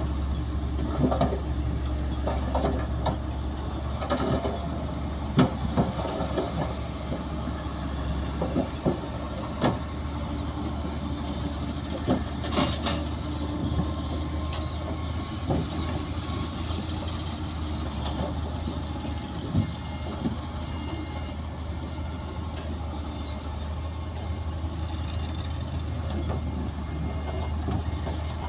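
Heavy diesel earthmoving machinery running steadily with a low engine drone, overlaid by scattered clanks and knocks, one sharper bang about halfway through.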